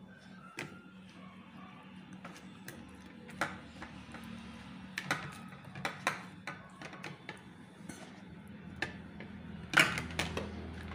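Fingers and eggplant slices scraping and tapping on a steel plate as masala paste is rubbed onto the slices, giving scattered light clicks with a louder knock near the end. A steady low hum runs underneath.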